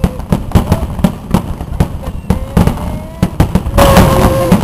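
Aerial fireworks going off in quick succession, several sharp bangs and crackles a second, with short whistling tones among them. The barrage grows louder and denser near the end.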